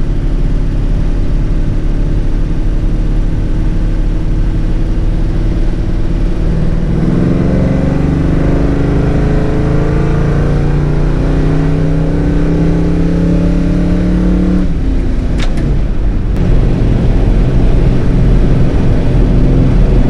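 Ford XC Falcon's 351 Cleveland V8 running on the road over heavy low rumble: steady at first, then pulling harder with the engine note climbing from about seven seconds in. The note drops suddenly about fifteen seconds in, followed by a couple of short clicks.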